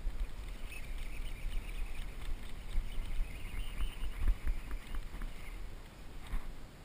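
Baitcasting reel being cranked: a steady whir with quick ticks that stops near the end, over low rumble and bumps on the microphone.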